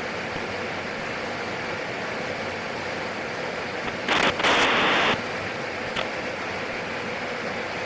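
Steady cockpit noise of a PAC 750 single-engine turboprop in flight, heard as an even hiss through the intercom and radio feed. About four seconds in, a loud burst of radio static lasts about a second and cuts off abruptly, followed by a short click, as of a radio transmission with no words.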